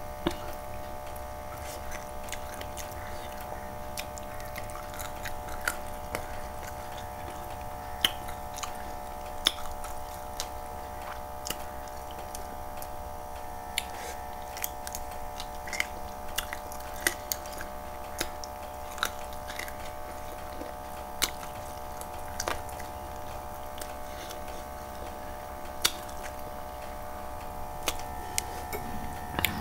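Close-up mouth sounds of a person chewing chicken kosha and rice eaten by hand, with many short, sharp wet clicks scattered throughout, over a steady electrical hum.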